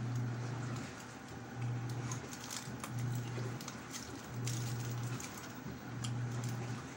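Chewing and mouth noises, with soft clicks and smacks, as a bite of beef shawarma is eaten. Under them runs a low hum that pulses on and off about every one and a half seconds.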